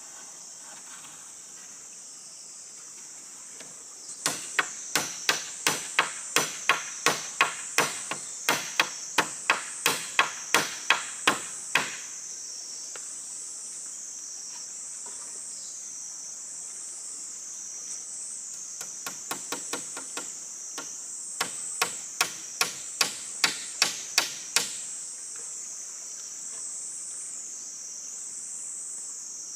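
Two quick runs of sharp blows on wood, about two to three strikes a second: a first of about twenty strikes, then a few softer knocks, then a shorter run of about a dozen. Insects keep up a steady high drone that pulses in waves in the second half.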